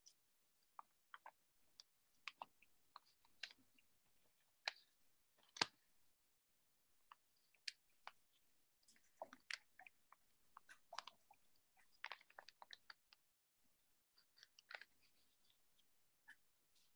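Near silence broken by faint, irregular small clicks and taps, a few to several a second at times.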